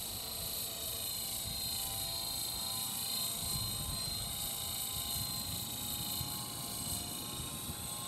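Radio-controlled helicopter with a four-blade rotor head in flight: a steady whine whose pitch wavers slightly as it manoeuvres, over a low rumble.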